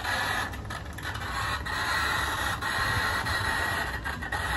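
Ghost-hunting spirit box sweeping through radio stations: a steady hiss of radio static, broken up by quick clicks and short gaps as it scans.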